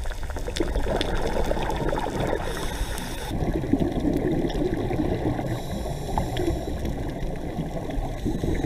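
Underwater ambience picked up by a camera in its housing: a steady, muffled rush of water with scattered faint clicks.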